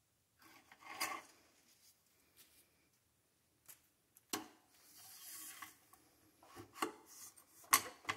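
Cleaning rod pushing patches through an AR-15 barrel: scraping and rubbing strokes, with a few sharp metal clicks, the loudest near the end.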